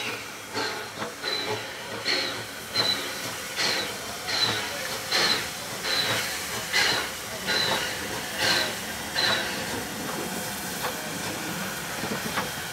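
NSW 32 class steam locomotive 3237 passing under steam, its exhaust beating out regular chuffs about one every 0.8 seconds. Near the end the chuffs fade, leaving a steady hiss.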